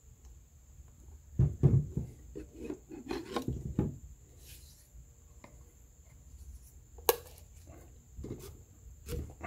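Rubber throttle grip, wet with alcohol, being twisted and pushed onto a plastic throttle sleeve: rubber rubbing on plastic in two louder spells in the first four seconds, then a sharp click about seven seconds in and a few softer knocks near the end.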